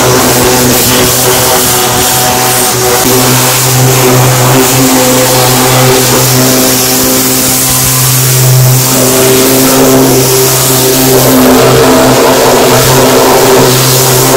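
Industrial 250-bar, 7.5 HP high-pressure washer running steadily, its pump and motor droning under the loud hiss of the turbo-nozzle water jet spraying a truck's tyre and underside.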